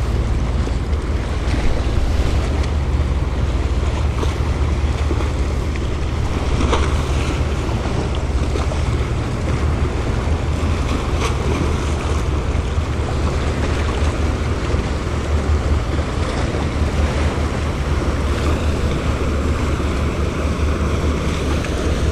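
Wind buffeting the microphone in a steady low rumble, over water sloshing and lapping against a kayak on open water.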